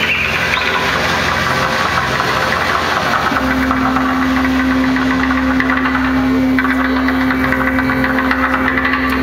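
Sound design of a projection-mapping show played over loudspeakers: a dense, steady drone, with a strong low tone coming in about three seconds in.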